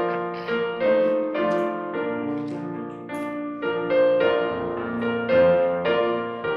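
Piano playing a slow, gentle melody over held chords, new notes struck every half second or so.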